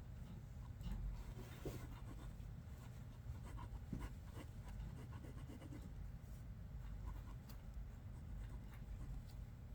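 Pencil scratching on paper in short, irregular strokes with faint taps, over a steady low hum.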